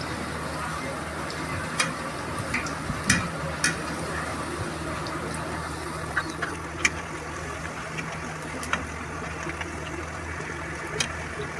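Hot oil sizzling steadily as a pakwan flatbread deep-fries in a kadhai, with a low steady hum underneath. Light clicks of metal tongs against the pan come now and then as the bread is turned.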